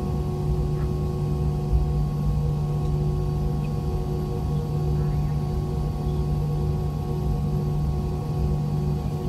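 IAE V2525-D5 turbofan engines of an MD-90 running steadily while the jet taxis, heard inside the cabin beside the rear-mounted engine: a steady buzz of several held tones over a low rumble.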